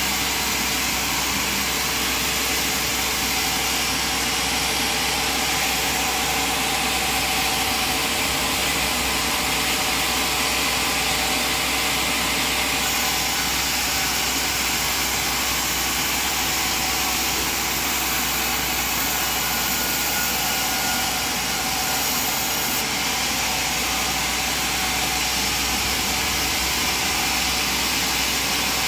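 Sawmill machinery running with a steady, unbroken mechanical noise and a low hum underneath.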